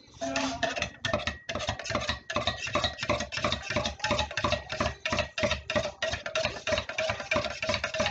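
A spoon stirring quickly inside a stainless-steel Yeti tumbler, clinking against the wall about five times a second with a steady ringing tone.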